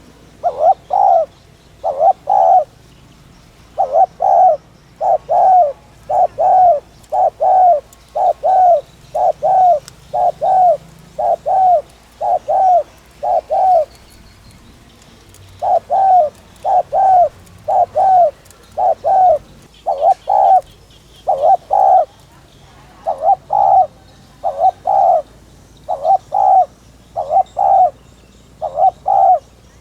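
Spotted dove cooing a fast, repeated 'thúc' song: short coos in quick groups of two and three, about one a second, with a pause of under two seconds near the middle. Faint chirps of other birds behind it.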